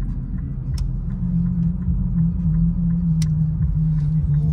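Steady low rumble and hum inside the cabin of an Infiniti Q50 3.7 with its V6 running, with faint regular ticking and two brief clicks.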